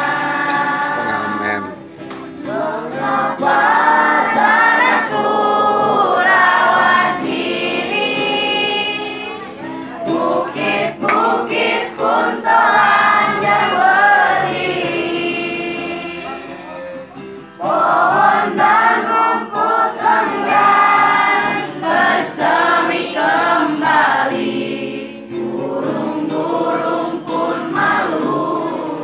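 A group of voices singing a song in Indonesian together, accompanied by an acoustic guitar, with short breaks between phrases.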